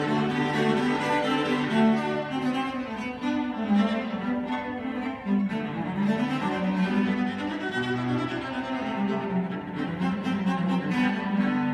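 Cello duet: two cellos played with the bow, one sustaining long low notes while the other plays a moving melody above it.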